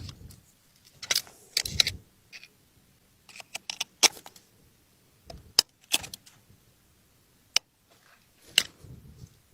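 Irregular short clicks and light rattles: about a dozen sharp ticks scattered unevenly, some in quick little clusters, with quiet between them.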